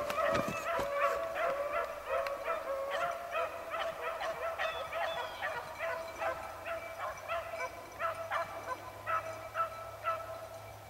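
A pack of beagles baying as they run a rabbit's track: short, repeated, overlapping bawls, easing off near the end.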